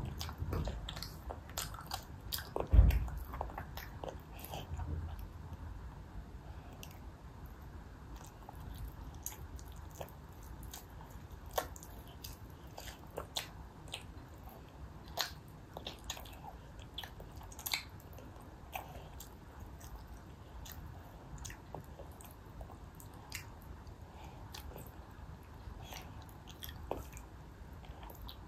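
A toddler chewing stewed chicken off the drumstick, with small wet mouth smacks and clicks scattered throughout. There is one low thump about three seconds in.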